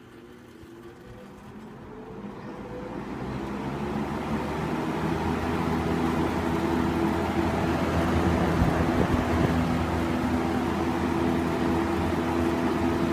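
1978 Sears (Lasko) Model 8131 20-inch box fan started on high speed: the motor and blades spin up over the first few seconds with a rising whine, then run steadily with a rush of air over a steady motor hum.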